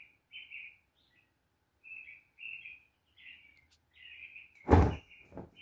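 Small birds chirping in short, repeated calls. Near the end comes a loud thump, followed by a softer one.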